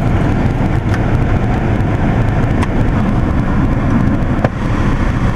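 Steady low rush of the air-conditioning blower of a running 1993 Toyota Camry V6, with the engine running underneath and a few faint clicks. The air-conditioning is being tested: air from the vents that does not feel stale is taken as a sign that the system still holds refrigerant.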